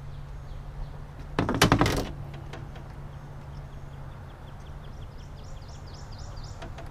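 A brief clatter of knocks and rattles on an aluminum fishing boat about one and a half seconds in, over a steady low hum. A bird chirps repeatedly in the second half.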